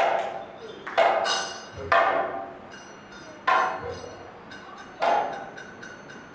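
Kathakali accompaniment: a metal gong struck about six times at an uneven pace, each stroke ringing out and fading over roughly a second.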